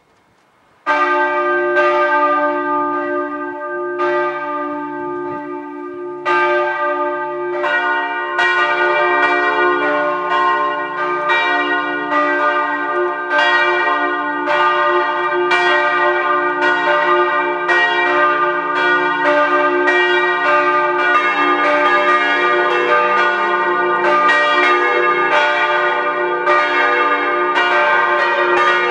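Church bells beginning to ring: a single bell starts about a second in, a second bell joins around seven seconds, and another around twenty-one seconds, building into a full, continuous peal of overlapping bells.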